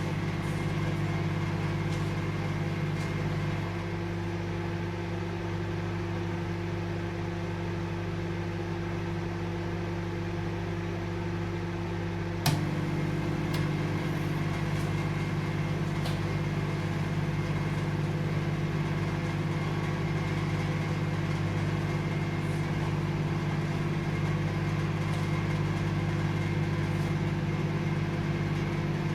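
Microwave oven running: a steady low hum with a few fixed tones. The hum drops a little about four seconds in, then a sharp click about twelve seconds in brings it back fuller.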